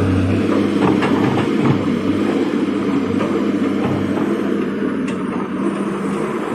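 Komatsu PC200 hydraulic excavator's diesel engine running steadily, with scattered clanks and knocks over it.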